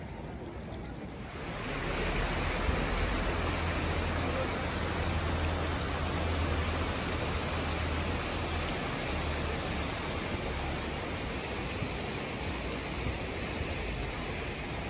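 Hot spring water rushing through the Yubatake's wooden troughs, a steady hiss of flowing water that grows louder about a second and a half in, with a deep rumble underneath for several seconds.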